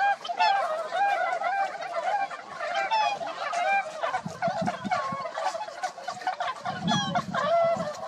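A flock of domestic geese gabbling: many short, rapid, overlapping calls.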